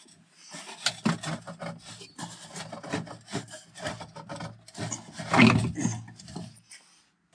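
A Truma heater's flexible warm-air hose being pulled out of its run, with irregular scraping and rustling as it rubs along. It is loudest about five seconds in and stops shortly before the end.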